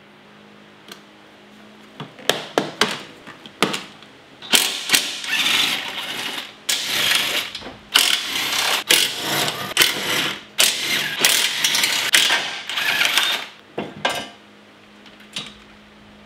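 Cordless power tool run in several bursts of one to two seconds each, spinning off the strut brace mounting nuts, after a few clicks of the socket going onto the nuts.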